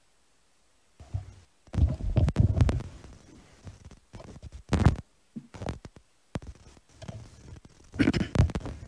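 Irregular low thumps, knocks and rustles of a desk microphone being handled, starting about a second in and loudest around two seconds, five seconds and eight seconds in.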